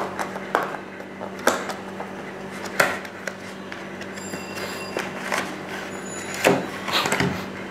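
A cardboard box being opened by hand: its flap pulled and the box handled, with several sharp knocks and rubs of cardboard over a steady low hum.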